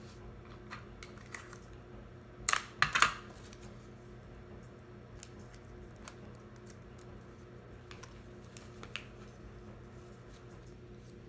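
Folded origami paper being handled: soft rustles and small clicks, with a brief burst of louder crinkling, three quick strokes, about two and a half to three seconds in.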